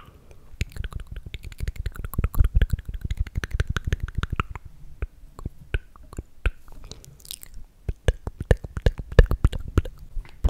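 ASMR mouth sounds made close to the microphone: a rapid run of wet clicks and smacks of the lips and tongue, with a brief break a little after the middle.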